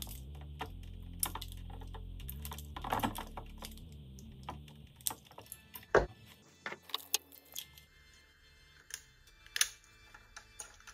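Small metal clicks and taps of a snap-off utility knife blade and push-on wire connectors against the terminals and frames of small speaker drivers, with one louder knock about six seconds in. Quiet background music under the first part.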